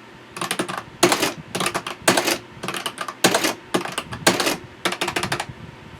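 Adding machine being operated, its keys and mechanism clacking in about nine quick runs of clicks.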